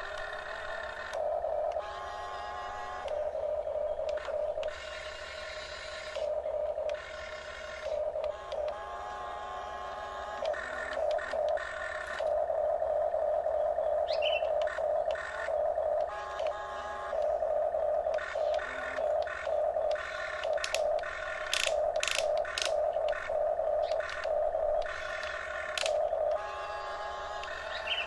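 Electric motors of a Huina RC excavator whining at one steady pitch, starting and stopping in short and longer runs as the boom, arm and bucket are worked. The runs come in quick stop-start bursts in the second half.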